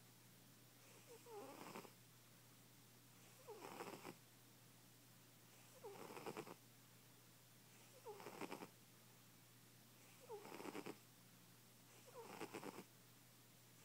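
Overweight house cat snoring in its sleep: one short snore about every two seconds, six in all.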